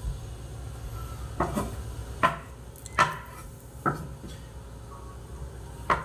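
Kitchen knife slicing through a block of Spam and knocking on a wooden cutting board, about five sharp knocks at uneven intervals.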